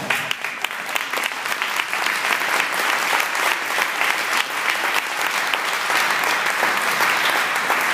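An audience applauding, a steady round of many hands clapping.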